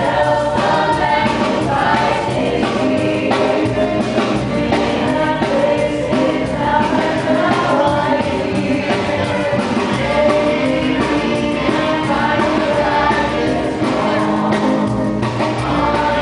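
Music: a chorus of many voices singing together over accompaniment, at an even level.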